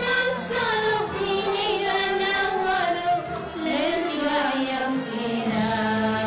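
Two women singing a duet into handheld microphones, their voices sustained and gliding in pitch over held accompaniment notes.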